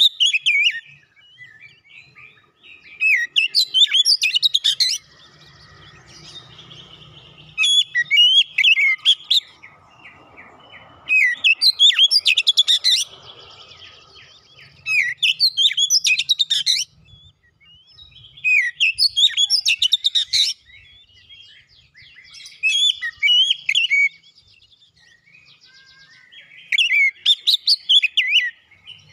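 Caged Oriental magpie-robin (kacer) singing in full voice: loud phrases of quick, varied whistles, each about two seconds long, repeated every three to four seconds with short pauses between.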